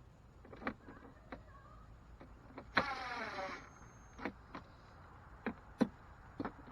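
Cordless drill driving screws: one short burst of motor whine about three seconds in, with scattered sharp clicks and taps around it.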